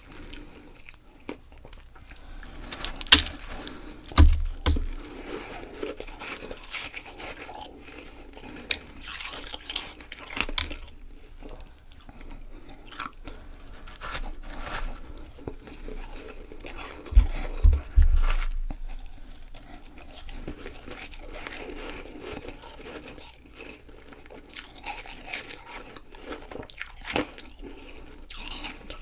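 Close-miked bites and chewing of a packed ball of powdery ice: a run of crisp, irregular crunches. A few bites are much louder, with a low thud, around four seconds in and again around seventeen to eighteen seconds in.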